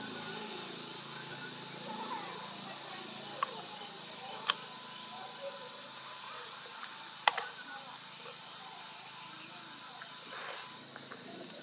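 Steady chirring of insects, with a few sharp clicks from hands working in opened mussel shells, two in quick succession about seven seconds in.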